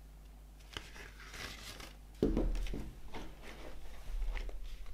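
Cardboard vinyl LP jacket handled and turned over: dry rustling and sliding, a thump about two seconds in as it is set down on a wooden tabletop, then more sliding and light knocks of cardboard on wood.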